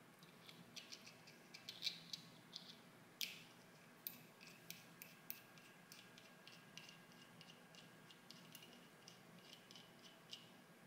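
Faint, irregular small metal clicks and ticks from a hand-turned 1 cc Weaver model airplane engine, its aluminium crankcase and piston parts knocking lightly as the crank is rotated and the piston slides in its bore.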